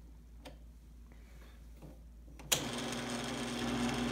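ASR-33 Teletype switched on about two and a half seconds in: a sharp click, then its motor starts and runs with a steady mechanical hum.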